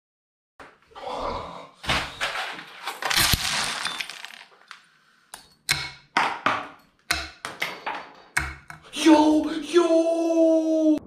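Plastic push pins clattering onto a tabletop: a dense rattle of many small hits for a few seconds, then single clicks as more pins land. Near the end a man makes a drawn-out vocal exclamation.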